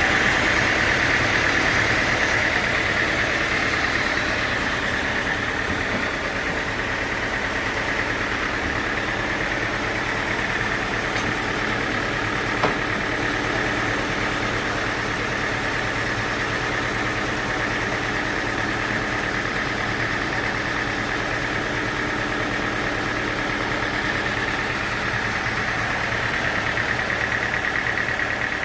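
Engine-driven sawmill machinery running steadily with an even hum and a whine near the upper middle. One sharp click comes about twelve seconds in.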